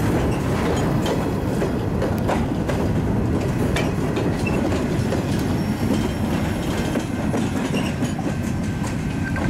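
Covered hopper cars of a freight train rolling past at close range: a steady rumble of steel wheels on the rails, with clicks as the wheels pass over rail joints.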